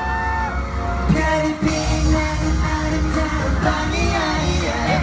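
Live K-pop song performed over amplified speakers: male voices singing into microphones over a loud pop backing track with steady bass.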